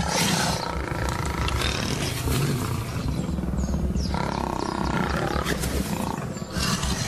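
Lions growling and snarling without a break as they fight over an antelope carcass.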